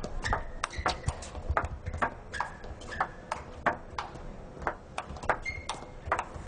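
Table tennis rally: the ball clicking sharply off the players' bats and bouncing on the table, a quick run of clicks at a few per second.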